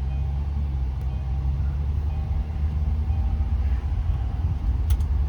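Steady low rumble of a car on the road, heard from inside the moving car.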